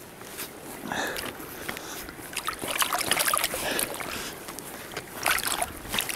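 A wooden stick jabbing and stirring in a hole in pond ice: water and slush sloshing, with irregular knocks and crunches of broken ice.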